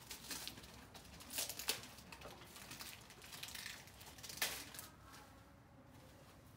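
Gift wrapping paper crinkling and rustling as it is handled and torn open, in irregular short bursts with the sharpest crackles about a second and a half in and again past four seconds, quieter near the end.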